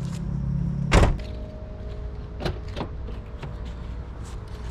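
A Subaru Forester's car door slamming shut with one loud thump about a second in, followed by a few lighter clicks and knocks. A low rumble stops at the slam.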